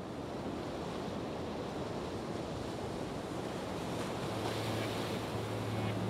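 A steady rushing noise like wind or surf, swelling slightly. A low steady hum comes in about four seconds in.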